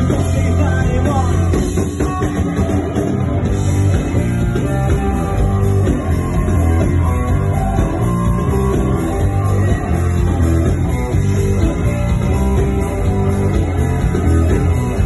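Live rock band playing loudly: electric guitar over a full band with drums.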